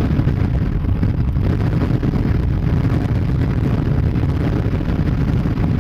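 Steady low rumble of strong wind buffeting the microphone, mixed with the running noise of a vehicle on the road.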